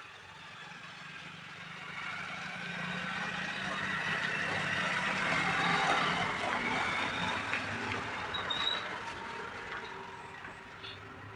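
A heavy vehicle, likely a truck, driving past: the noise builds for a few seconds, peaks about halfway through and fades away, with a few small clicks near the peak.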